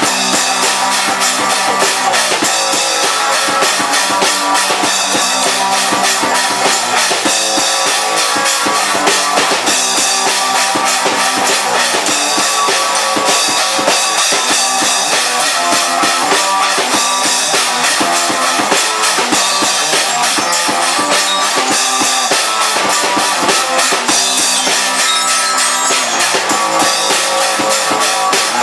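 Rock music with a drum kit beat and guitar, loud and steady throughout.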